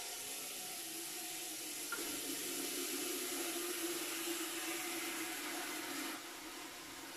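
Kitchen tap running a steady stream of water into a plastic basin in the sink. The flow gets a little quieter about six seconds in.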